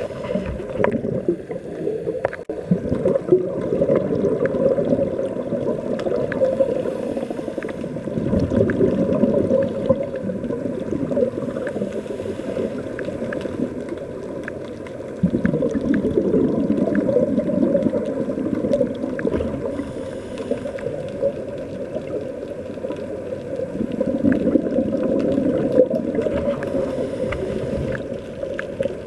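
Muffled underwater noise through a camera's waterproof housing: a dull, steady rush that swells and eases every few seconds, with scattered faint clicks.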